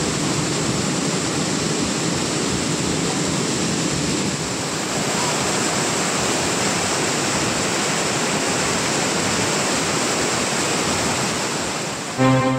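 Waterfall rushing: a steady, loud roar of water plunging into a rocky pool. Music with sustained notes cuts in right at the end.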